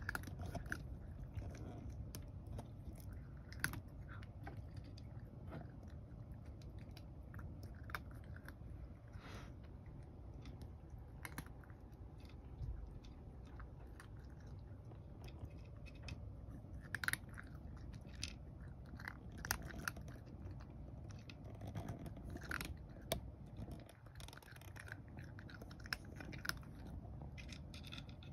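A cat eating from a shallow dish: chewing, with many small irregular clicks and smacks as it bites and takes up the food.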